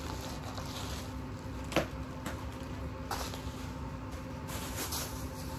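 Rustling and crinkling of a padded paper mailer being handled, with scattered short rustles and one sharp snap about two seconds in.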